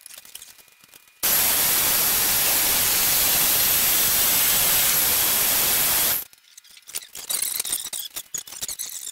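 Portable band saw switched on and run for about five seconds, a loud steady noise that starts and stops abruptly.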